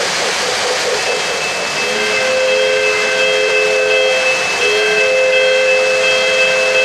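O-gauge model trains rumbling along three-rail track. From just under two seconds in, a model locomotive's sound system blows a long multi-note whistle, broken once briefly about four and a half seconds in.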